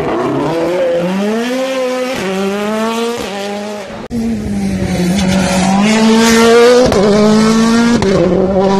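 World Rally Car engines at full throttle on a stage, the pitch climbing and then dropping sharply at each gear shift. About four seconds in the sound cuts off abruptly to a second car revving hard through several more upshifts.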